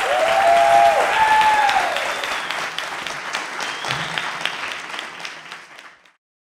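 Audience applauding, with a couple of long whooping cheers in the first two seconds. The clapping thins out and stops abruptly about six seconds in.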